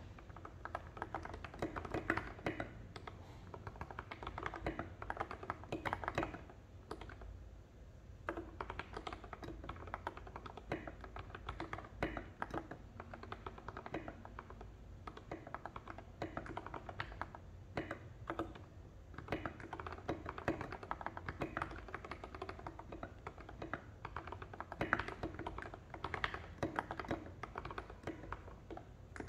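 Typing on an NJ68 mechanical keyboard with lubed Gateron Milky Yellow linear switches and SA-profile keycaps: a steady stream of keystrokes, with a short pause about seven seconds in.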